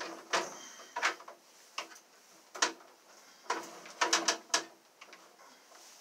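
A series of short knocks and clicks, about eight of them, irregularly spaced, with three close together a little past the middle.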